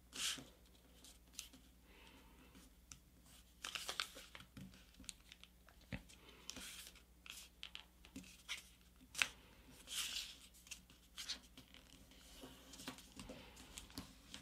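A sheet of paper being folded and creased by hand: faint, intermittent rustling and crinkling strokes as the layers are lined up and pressed flat, with a few sharper ticks.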